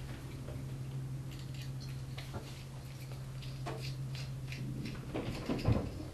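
Faint small metallic ticks and clicks of an Allen key working the button-head screws out of a Van Staal spinning reel's flyer, with a few louder clicks about five seconds in. A steady low hum runs underneath.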